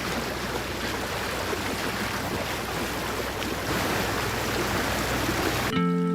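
Steady rush of sea water and wind, as heard from a boat on the water. Near the end it gives way to music with chiming, bell-like tones.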